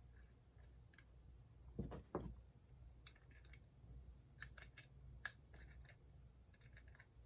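Faint clicks and light knocks of small metal spray-gun parts being handled as the fluid nozzle is fitted into the gun body. There are two duller knocks about two seconds in, a run of sharper clicks around the middle, and a low steady hum beneath.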